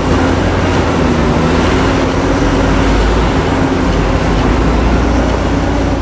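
Caterpillar 6015B hydraulic mining excavator at work, its large diesel engine running under load with a steady, loud low rumble and a faint wavering hum.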